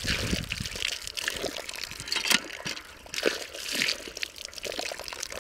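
Water pouring from a pump's outlet pipe and splashing unevenly over a hand being washed under the stream.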